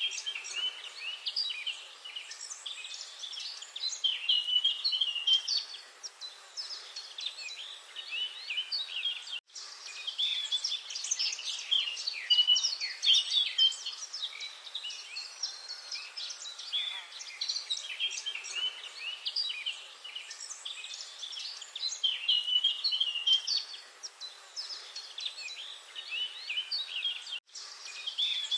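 Many small birds chirping and twittering at once, a dense chorus of short overlapping chirps and trills. The sound cuts out for a split second twice, about a third of the way in and near the end.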